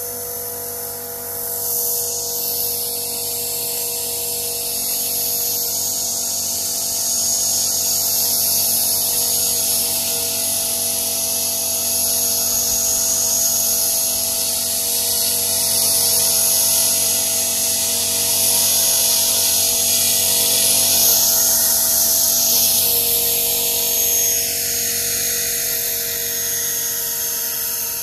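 Blade 450 3D electric RC helicopter flying: the brushless motor's steady high whine over the main rotor's whir, growing louder about two seconds in.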